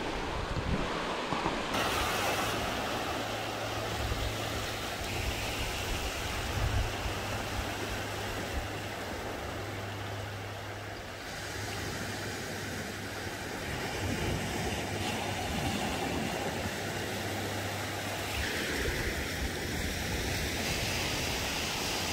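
Small waves washing over a shallow sandy beach. A steady low drone starts about two seconds in and stops near the end.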